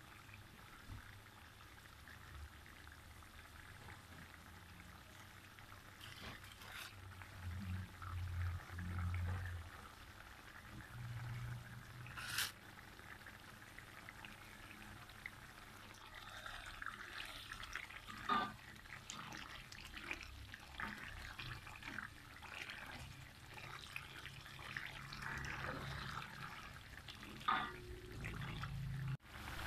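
Chilli paste (sambal) simmering in a wok, bubbling and crackling, busier in the second half. A few sharp clicks stand out, with a spoon stirring through the paste near the end.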